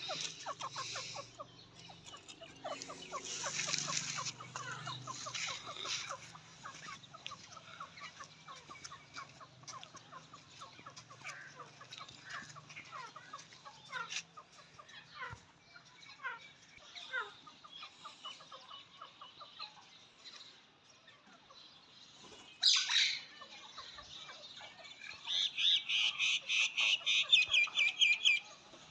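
Female grey francolin calling: short quick notes, a brief loud call about two-thirds of the way in, then near the end a loud, fast run of sharp repeated notes lasting about three seconds.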